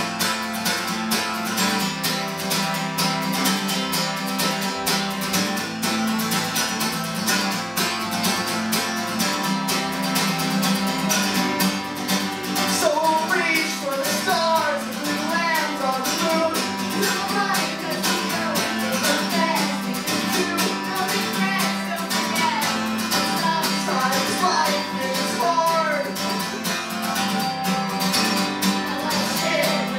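Acoustic guitar strummed steadily through a folk song's instrumental stretch. From about the middle onward, a voice sings a wavering melody over it without clear words.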